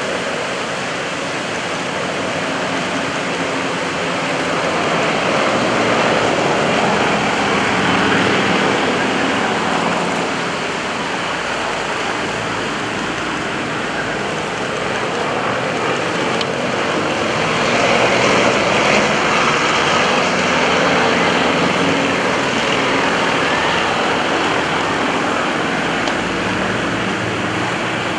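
Yak-52 and Nanchang CJ-6 aerobatic planes flying in formation overhead, their nine-cylinder radial engines making a steady rushing drone that grows louder twice as the formation passes.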